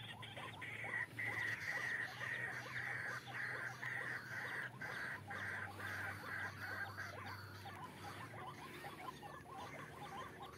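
White-breasted waterhen calling in a run of repeated rough notes, about two a second, stopping about seven seconds in, over a constant patter of rain.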